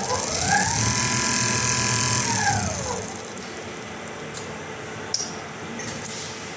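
Rotating-head industrial sewing machine stitching heavy jacket material: its motor whines up to speed over about a second, holds a steady pitch while it sews, then winds down about three seconds in. A few light clicks follow.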